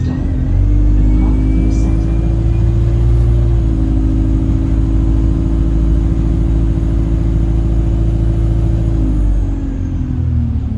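Alexander Dennis Enviro 200 bus under way: a steady engine and driveline drone with a whistling tone, which the uploader suspects comes from the gearbox, and a faint rising whistle in the first two seconds. The sound eases off and drops in pitch near the end.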